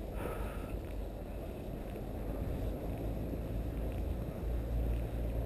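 Wind noise on the microphone of a camera carried while walking: a steady low noise that gets a little louder near the end, with a brief higher sound just after the start.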